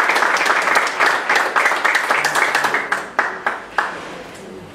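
Small audience applauding: dense clapping that thins out to a few scattered claps and dies away about four seconds in.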